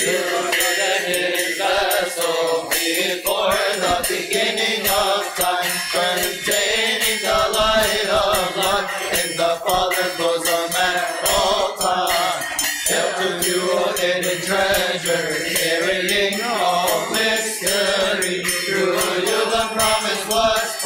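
Voices chanting a Coptic Orthodox Arabic hymn to the Virgin Mary. The melody is drawn out and continuous, with no clear words, between sung verses.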